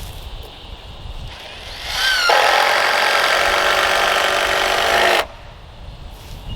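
Power drill running into wood, spinning up about two seconds in, running steadily for about three seconds, then stopping abruptly.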